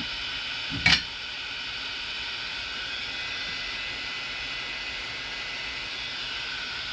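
Small 3D printer cooling fans running, a steady whirring hiss with a faint high whine in it, blowing through the dual part-cooling ducts onto a dish of water. A single sharp knock about a second in.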